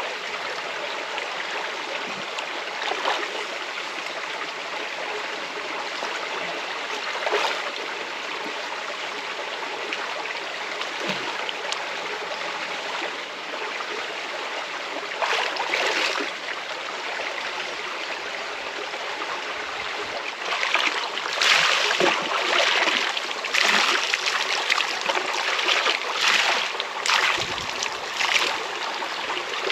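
River water flowing steadily, with occasional splashes of water. The splashes come thick and fast over the last nine seconds or so.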